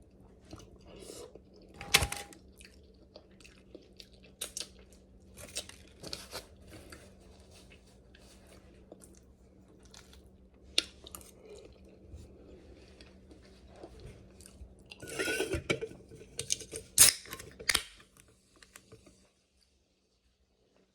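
Close-up eating sounds of king crab legs: chewing with scattered sharp cracks and crunches of the shell, one loud crack about two seconds in and a busier run of cracking near the end.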